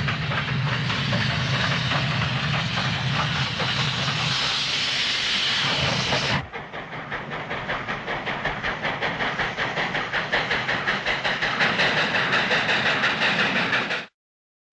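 Steam locomotive sound effects. First a steam train running, a steady hiss over a low rumble. About six seconds in it cuts abruptly to a second clip of regular rhythmic chuffing, which stops suddenly near the end.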